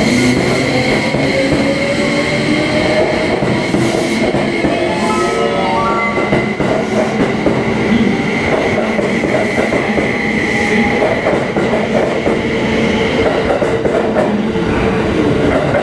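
JR West 271 series electric train moving off along the platform, its motor whine climbing in pitch and in steps as it gathers speed over the running noise of its wheels on the rails. A steady high tone sounds through it.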